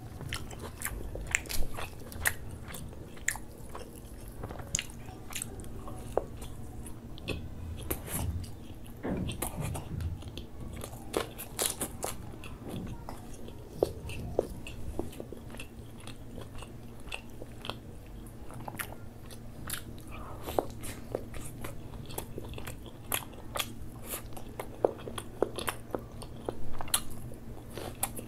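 Close-miked chewing, lip smacking and wet mouth clicks of a man eating butter chicken, rice and garlic naan with his hands. There are frequent short sharp clicks and smacks throughout.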